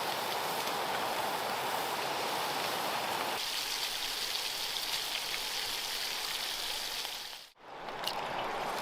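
A steady, water-like rushing noise that changes character about three seconds in and fades out near the end.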